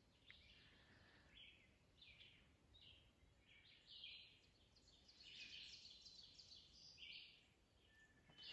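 Faint bird song: short high phrases from small birds, one after another.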